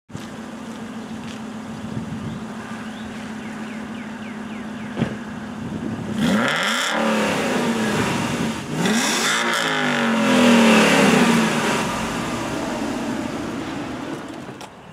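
2007 Aston Martin V8 Vantage's V8 engine idling, then revved twice, each rev climbing and falling back to idle, the second one longer.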